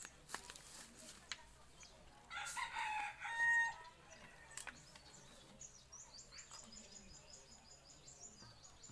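A rooster crowing once, about two seconds in, lasting roughly a second and a half and ending on a held note. A few faint clicks come before it, and near the end there is a faint, rapid, high-pitched chirping.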